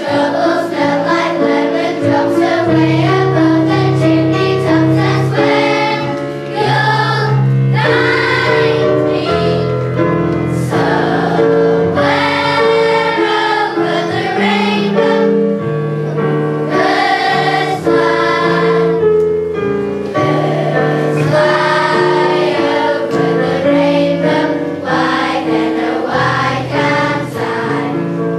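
A children's choir singing a song together over sustained instrumental accompaniment.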